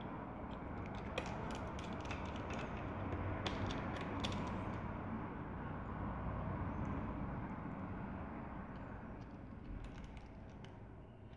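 Small clicks and taps of a precision screwdriver driving tiny screws into a MacBook Air's battery, in a cluster over the first few seconds and again near the end, over a steady background rush.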